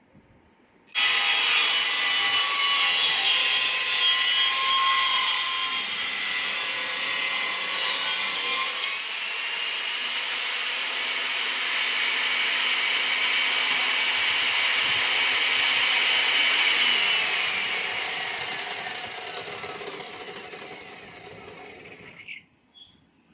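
A power saw cutting agarwood: it starts abruptly about a second in and changes tone about nine seconds in. From about seventeen seconds its pitch falls and it fades, then it stops abruptly near the end.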